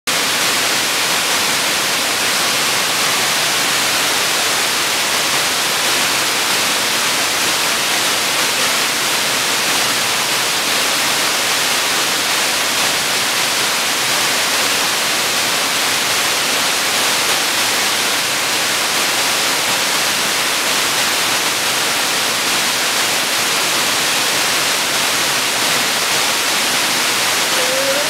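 Steady, even rush of a waterfall about 100 m tall falling down a rock face into its pool.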